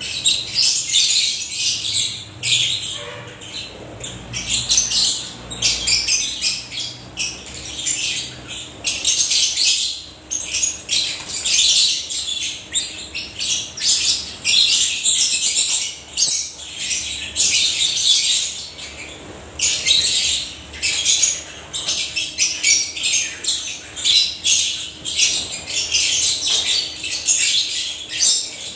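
A flock of African lovebirds calling without pause, many high-pitched chirps and squawks overlapping in dense chatter.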